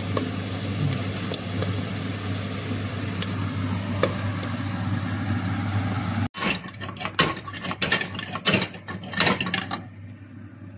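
Champignon mushrooms and peperoni cruschi frying in a nonstick pan, sizzling and crackling with scattered pops, over a steady low hum. About six seconds in, a cut brings louder, irregular bursts of noise from the pan, which die down near the end.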